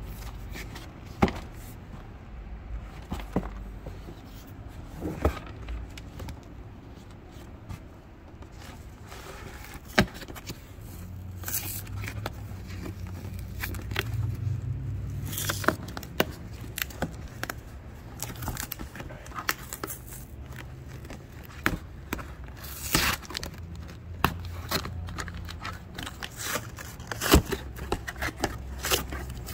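USPS Priority Mail cardboard boxes being handled and torn open: scattered scrapes and knocks of cardboard, with a few longer stretches of cardboard and tape tearing.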